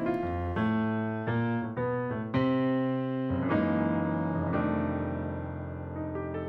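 Instrumental background music on a piano-like keyboard, a new chord or note every half second or so.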